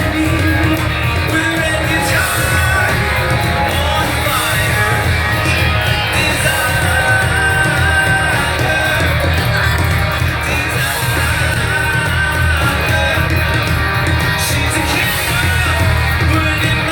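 Rock music playing steadily, with a singing voice and guitar.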